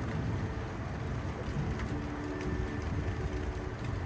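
Thunderstorm ambience: a low, steady rumble with no sharp cracks.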